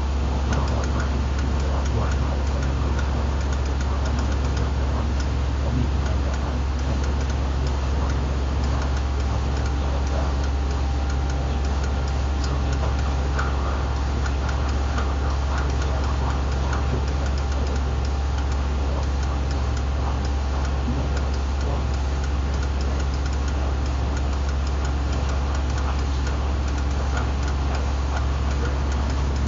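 Electrodynamic vibration test table running a random vibration test with a cardboard box on it: a steady, loud low hum with a constant hiss and faint irregular ticking over it.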